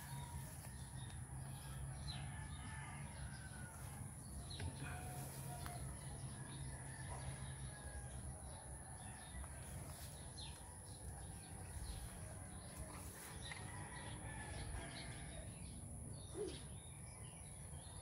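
Garden ambience: scattered short bird chirps over a steady low rumble and a constant high-pitched whine.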